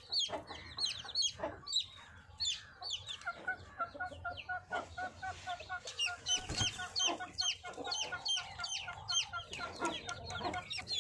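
Newly hatched Kadaknath-cross chicks peeping over and over in short, high, falling chirps. Through the middle a Sussex mother hen joins in with a quick run of low clucks.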